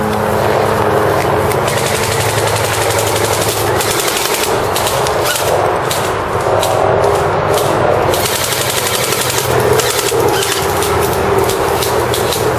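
Airsoft electric guns firing on full-auto: a fast, continuous mechanical rattle of shots in long bursts.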